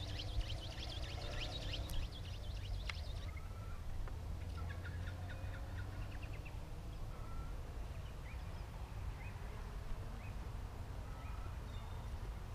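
Wild birds chirping and calling: a dense run of quick high chirps for the first three seconds, then scattered short whistles, over a steady low wind rumble on the microphone.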